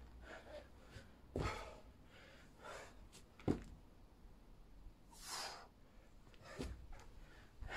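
A man's hard breathing while doing burpees: about five separate, short breaths spaced a second or so apart, the sound of exertion mid-set.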